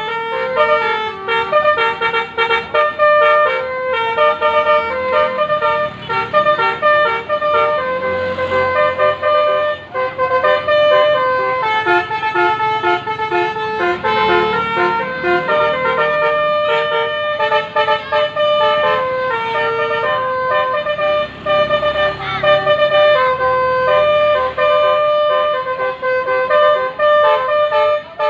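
Bus basuri musical horn (telolet) playing a tune: a long run of loud held notes that step up and down in pitch, several tones sounding together.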